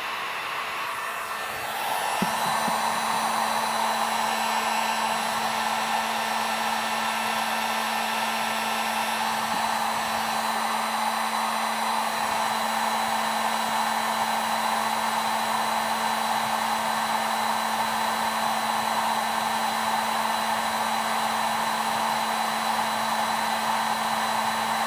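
Drillmaster heat gun blowing hot air onto a sheet of plexiglass to soften it for bending: a steady fan rush over a low motor hum. It steps up louder with a click about two seconds in, then holds steady.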